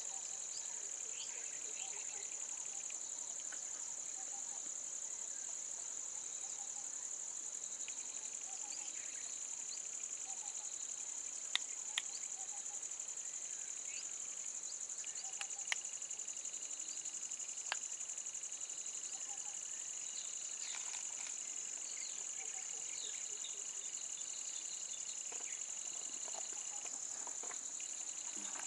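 Steady, high-pitched insect chorus, with a second, lower insect tone joining about halfway through and dropping out near the end. A few sharp clicks stand out.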